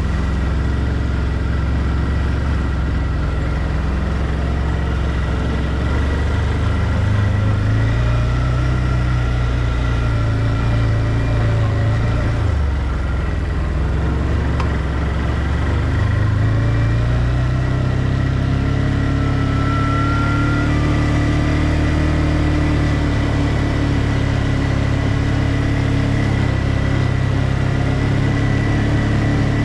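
ODES 650 ATV engine running while the quad is ridden, its engine speed dipping and rising again several times, with a steady high whine alongside.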